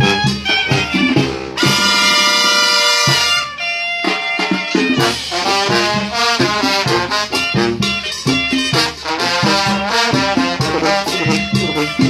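A live Mexican banda playing: trumpets, trombones and clarinets together. About two seconds in the band holds one long chord for over a second, then goes back into a rhythmic dance tune.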